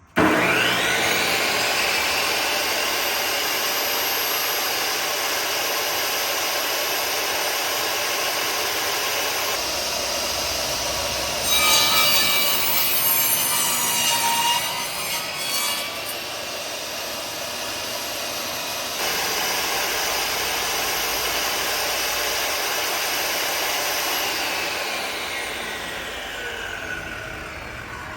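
10-inch Craftsman table saw switched on and spinning up to a steady run. About eleven seconds in the blade cuts through wood for around five seconds, louder and rougher, then runs free again; near the end the saw is switched off and winds down.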